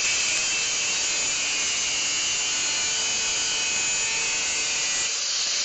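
Angle grinder with a thin cut-off wheel cutting through 1/4-20 steel threaded rod (all-thread): a steady, high grinding sound, the wheel biting into the steel.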